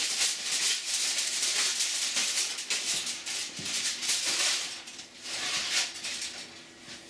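Crumpled aluminium foil crinkling and rustling in uneven bursts as a foil cover is pulled off a foil-lined wooden box; the crinkling dies away near the end.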